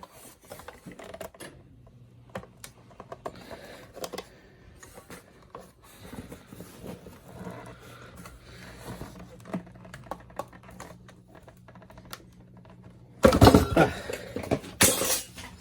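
Dust bag being worked off a Kirby G4 upright vacuum: scattered plastic clicks, rattles and handling noises, then a louder stretch of scraping and rustling near the end as the stubborn bag comes free.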